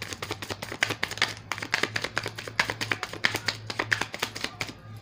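A tarot deck being shuffled by hand: a rapid, irregular run of soft card slaps and clicks, over a steady low hum.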